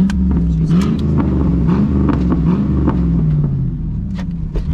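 Chevy pickup's engine running under load, its revs rising and falling repeatedly as the truck pushes along a wooded trail. Sharp cracks and knocks sound through it, brush and branches breaking against the truck as it clears the trail.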